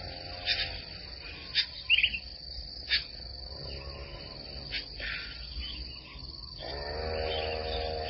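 A steady high insect trill with scattered short bird chirps, the loudest about two seconds in. Soft sustained background music tones fade out about a second in and come back in the last second and a half.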